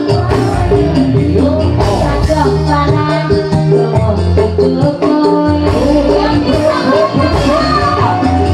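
Live dangdut koplo music played loud through a sound system: a woman singing over an electronic keyboard band with kendang drums and a steady beat.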